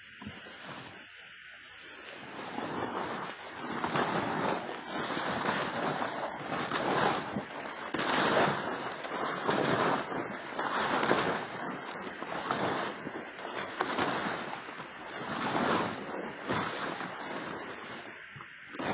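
Footsteps of leather work boots walking through long grass and dry fallen leaves: a swishing, crunching step about once a second, louder from about three seconds in.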